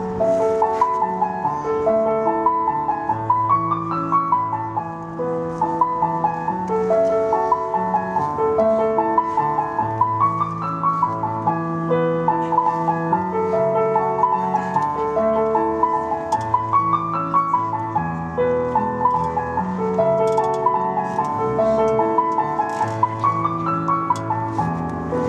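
Solo piano music: a slow, repeating pattern of broken chords over held bass notes, with a rising phrase that comes round every six or seven seconds.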